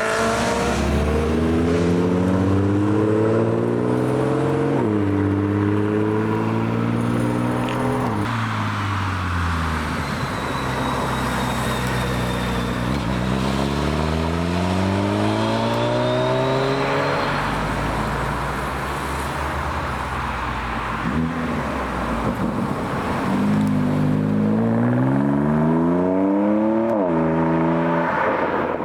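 Car engines revving hard as cars accelerate away one after another, each engine rising in pitch and dropping sharply at every upshift, about four upshifts in all.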